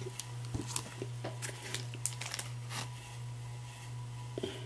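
Plastic comic-book bag crinkling and crackling in short, scattered bursts as a bagged comic is handled and propped up, over a steady low hum.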